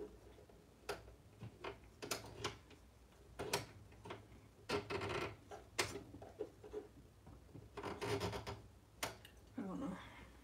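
Plastic selector dial on a Singer Heavy Duty sewing machine being turned and tugged by hand, giving a string of scattered clicks and short rubbing scrapes.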